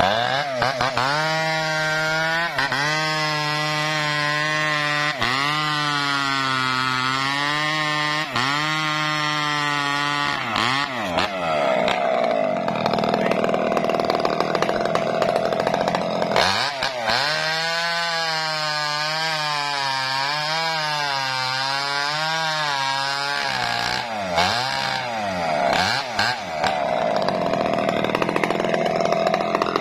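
Two-stroke chainsaw cutting coconut wood, its engine pitch dipping and rising as it bogs and recovers in the cut. In the middle and again near the end it turns rougher and noisier.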